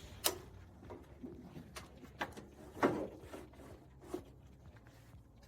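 Scattered clicks and knocks of parts being pushed and fitted inside a car door during window channel and regulator work, with the loudest knocks near the start and about three seconds in.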